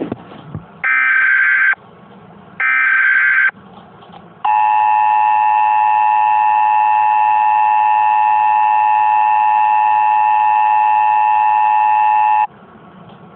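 Emergency Alert System SAME header: the end of one burst of digital data tones, then two more bursts about a second long each. Then the EAS two-tone attention signal, a harsh steady dual tone held about eight seconds that cuts off suddenly.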